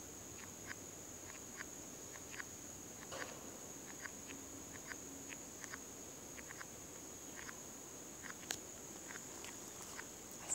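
Footsteps on dry leaf litter and twigs, a scatter of small irregular snaps with a sharper one about eight and a half seconds in, over a steady high-pitched insect drone.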